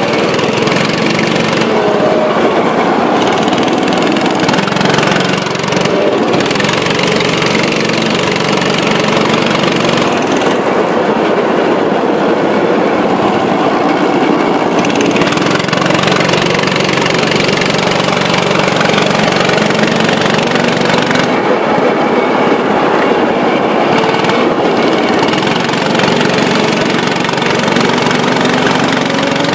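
Go-kart engines running at racing speed: a loud, steady engine drone, with the pitch rising near the end as a kart accelerates.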